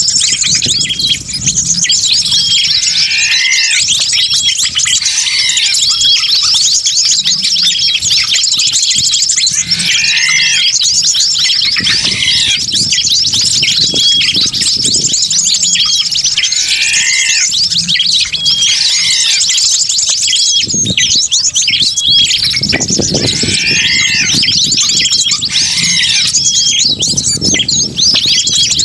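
Loud, dense chorus of many small birds chirping and twittering at once: a mixed bird-lure (pikat) recording played to attract wild birds. A swooping call repeats about every three to four seconds over the steady twittering.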